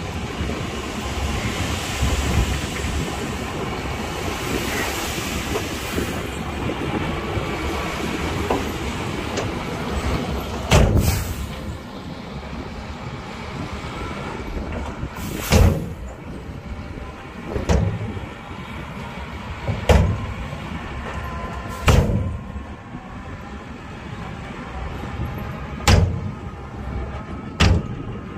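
Heavy earthmoving machinery running at a fill site, a steady engine noise that drops in loudness about eleven seconds in. After that come about seven loud metallic bangs, spaced irregularly two to four seconds apart.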